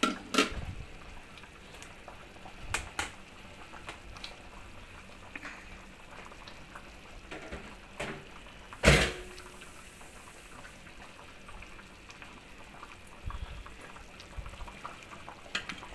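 Chicken ball curry boiling in a metal pot, its thick bubbles popping irregularly. There is one sharp knock about nine seconds in.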